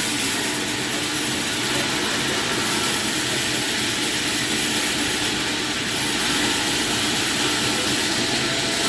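A machine running steadily with a constant hiss and a faint steady hum, with no cuts or knocks.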